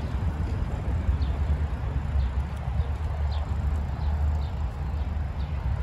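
Wind buffeting the microphone and a steady low rumble while riding a Divvy share bike along a concrete path. Faint short high chirps come about once a second.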